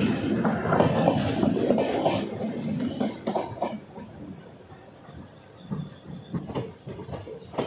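Passenger train coaches rushing past on the next track, heard from the doorway of a moving train: a loud rumbling rush that fades away about three seconds in. After that, the wheels of the train being ridden give quieter clicks over the rail joints.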